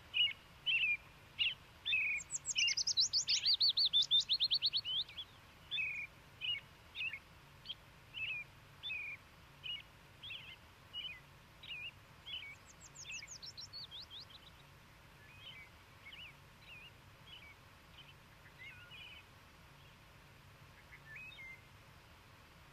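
Songbirds singing: a string of short chirps, one or two a second, broken by a fast trill about two seconds in that lasts nearly three seconds and is the loudest part, and a shorter trill near the middle. The chirps grow sparser in the second half.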